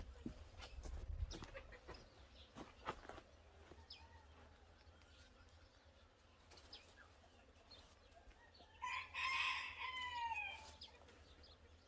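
A rooster crows once near the end, one long arching call of about two seconds. Before it come a few light knocks and clicks.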